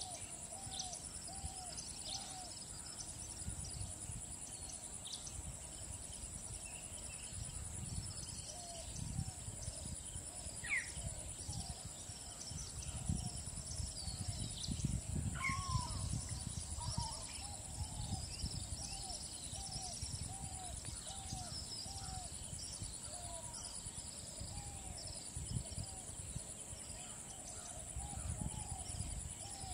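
Natural field ambience: a steady high insect drone, with a short arching call repeated about twice a second in runs, and scattered high bird chirps. Irregular low rumbling swells around the middle.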